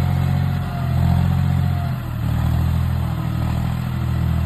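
John Deere 5055E tractor's three-cylinder diesel engine running steadily as the tractor drives across the field, with a thin steady whine over it for the first couple of seconds.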